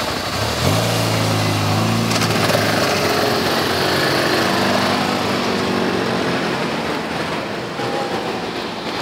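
Several police motorcycles' engines pulling away from a standstill one after another, the first about a second in and more around four to five seconds in, rising slightly in pitch as they accelerate. The sound eases off toward the end as they ride away.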